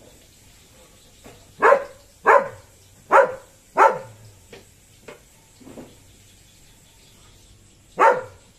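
A dog barking: four loud barks in quick succession starting about a second and a half in, a few fainter ones after, then one more loud bark near the end.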